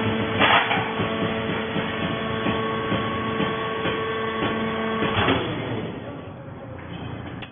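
Animal fiber baler running: a steady machine hum with clanks and clatter, which stops about five seconds in.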